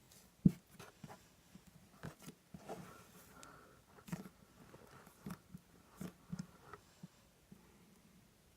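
Butter slime being squished and pressed by hand: irregular soft, sticky clicks and pops, the sharpest about half a second in.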